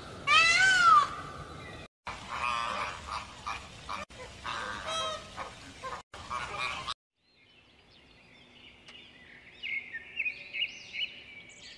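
A string of bird calls in separate clips. It opens with one loud, arching, honk-like call, followed by a few seconds of mixed calls. After a short silence, faint high chirping comes in near the end.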